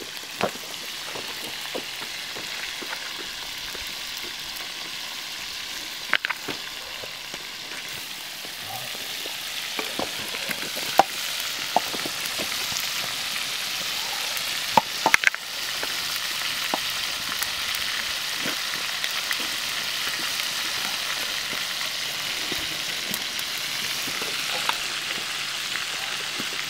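Battered fish frying in a large pan of hot oil over a campfire: a steady sizzle, with a few sharp clicks and knocks, the loudest about halfway through.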